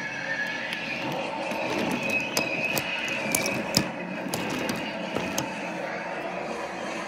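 Wooden toy trains rolling along wooden railway track: a steady rumble of wheels with many short clicks as the wheels cross the track joints.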